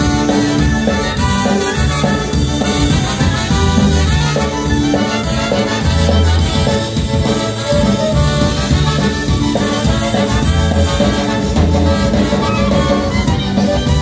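Live polka band playing an instrumental passage: piano accordion and concertina with electric bass, clarinet and two trumpets over a steady, even beat.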